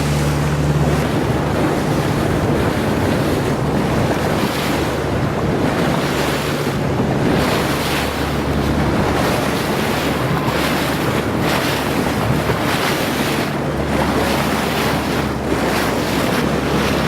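Wind buffeting the microphone over the wash of waves around a boat, with the boat engine's low steady hum fading in and out.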